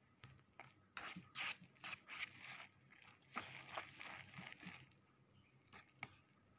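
Metal fork stirring sauce-coated instant noodles in a paper cup: a run of quick scrapes and clicks against the cup from about a second in until about five seconds in, then one more click near the end.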